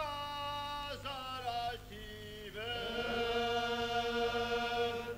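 Unaccompanied chant-like singing of a Pshav mowing song. Long held notes slide to a new pitch about a second in and again about two and a half seconds in.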